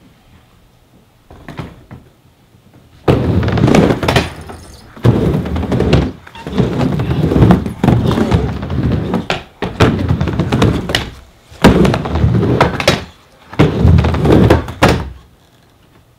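Skateboard wheels rolling across a plywood mini ramp, a rumble that comes and goes with each pass back and forth, with sharp knocks as the board hits the coping. It starts about three seconds in and stops near the end, when the board stalls on the coping.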